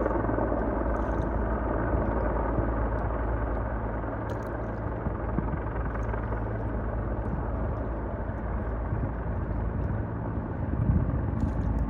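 A firefighting helicopter carrying a water bucket flying near, its steady engine and rotor noise mixed with the low hum of an idling jet boat outboard.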